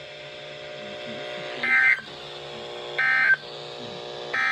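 Three short bursts of digital data tones, about a second and a half apart, from a NOAA Weather Radio broadcast played over a weather radio's speaker: the SAME End of Message code that closes an emergency alert such as this severe thunderstorm warning. A low steady hum runs between the bursts.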